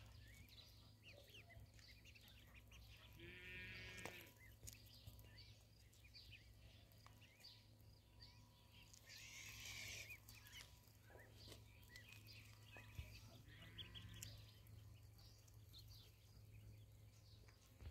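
A flock of ducklings peeping: many short, high cheeps scattered throughout, with a few longer, louder calls about 4, 10 and 14 seconds in, over a faint steady low hum.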